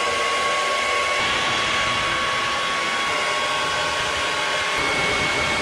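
Handheld hair dryer running steadily on wet hair: a constant rush of air over a thin, steady motor whine.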